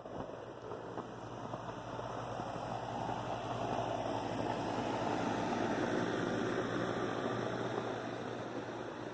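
A vehicle passing on a snowy road: a rushing tyre-and-engine noise swells to a peak about six seconds in and then fades, over a steady low hum.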